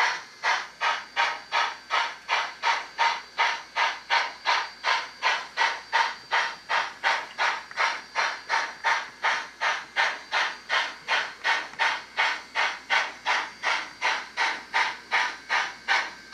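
ESU LokSound DCC sound decoder in an HO scale Rapido Canadian Pacific H1b Hudson (4-6-4) model playing steam exhaust chuffs through the locomotive's speaker. The chuffs come in a steady, even rhythm of about two and a half a second.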